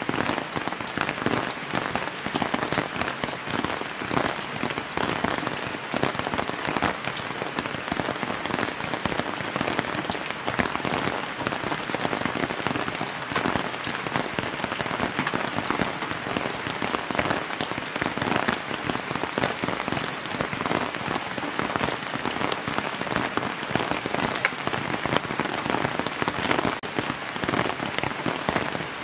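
Heavy rain falling steadily, with many close drops pattering on a plastic tarp shelter.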